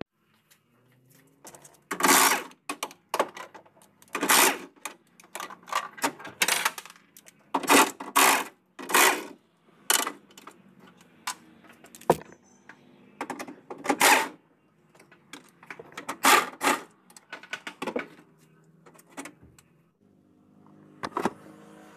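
Metal clanks, clicks and rattles as a Maruti Omni's sheet-steel engine cover is worked loose and lifted off, in a string of sharp knocks with lighter clicks between.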